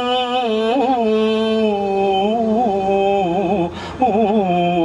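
A man singing an Arabic hymn solo, drawing one word out into a long ornamented melisma with quick turns of pitch. There is a brief break for breath about four seconds in before the line goes on.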